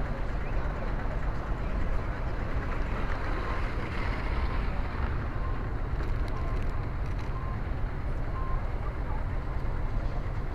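Steady low rumble and hiss of outdoor background noise, with a few faint short high beeps in the middle.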